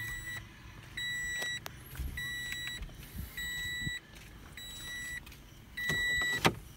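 Toyota Vios warning chime beeping repeatedly: six short electronic tones, each about half a second long, one about every 1.2 seconds. A sharp click sounds near the end.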